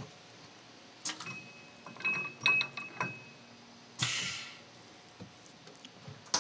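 Handling of a HAIMER tool balancing machine: scattered clicks and knocks of hands on the machine and its keypad, with a faint thin high tone lasting about two seconds. A short hiss comes about four seconds in, and a sharp click near the end as the safety lid is shut for the balancing run.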